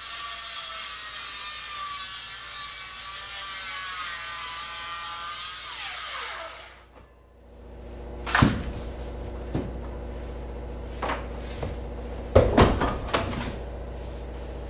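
Reciprocating saw cutting down through a fishing boat's hatch coaming, running steadily for about six seconds and then winding down as it stops. Then a series of separate knocks and thumps as the cut section is worked loose and broken off, the loudest cluster near the end.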